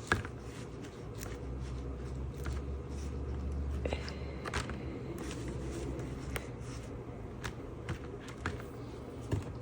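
Faint, scattered light taps and small scrapes over a low hum: quiet handling noise.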